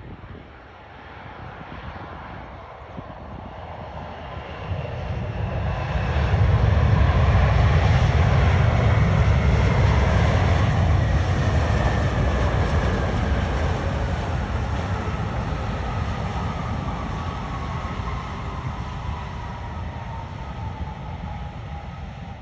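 Boeing 787 airliner landing: deep jet roar that builds over the first few seconds to its loudest about six to ten seconds in, then slowly fades. A whine falls steadily in pitch as the aircraft rolls out down the runway.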